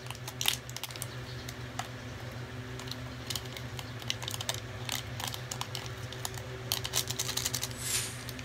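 Light, irregular ticks and taps of paper coffee stick sachets being flicked and shaken, pouring instant coffee into a ceramic bowl.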